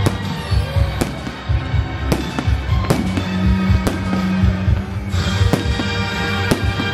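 Fireworks shells bursting, about six sharp bangs roughly a second apart, over music with a heavy low beat.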